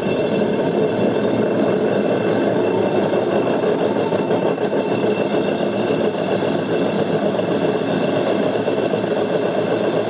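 Old washing machine series-wound commutator motor running on 48 volts DC, its rubber-collared shaft driving the drum's pulley by the rim. The running is steady and even.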